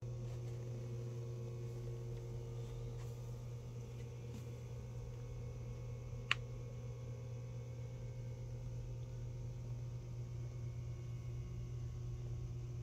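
Room tone: a steady low hum, with one short sharp click about halfway through.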